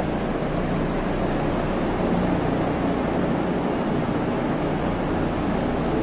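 A steady low mechanical hum under an even hiss, unchanging throughout.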